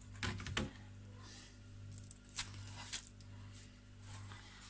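Faint rustling and a few light clicks of oiled baking paper as bran-breaded filled patties are set down and adjusted on it, a short cluster about half a second in and two single clicks later, over a low steady hum.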